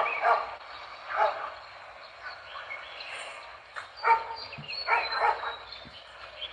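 A dog barking, about six barks in three short groups: near the start, about a second in, and again from about four seconds in. Behind the barks there is a steady background hiss.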